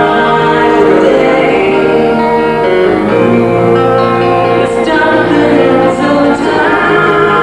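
A small group of teenage boys singing a song together through microphones, accompanied by an electric guitar played through an amplifier.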